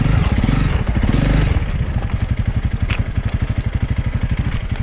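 Small vehicle engine idling with an even, rapid pulsing beat, fuller and a little louder for the first second and a half before settling. A brief click about three seconds in.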